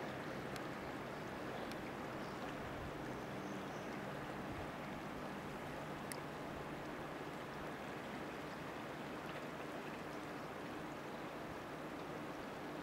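River water running steadily, an even rush with no change, with a faint low hum beneath it and a few faint clicks.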